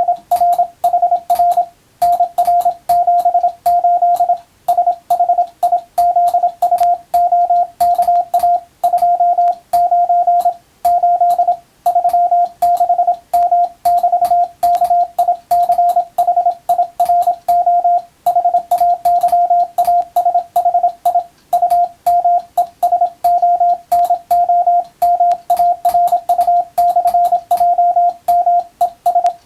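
Morse code (CW): a single steady tone, keyed on and off quickly into dots and dashes, with short pauses between groups. It is code practice sending for the radiotelegraph operator exam.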